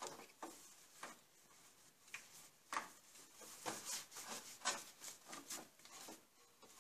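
Rubber transmission-cooler return hose being fed and pulled around metal frame parts: a faint, irregular string of rubs and scuffs, several a second, the loudest about three seconds in.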